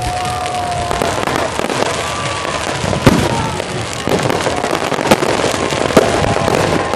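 Fireworks display: dense, continuous crackling from bursting shells, with sharp bangs about three, five and six seconds in.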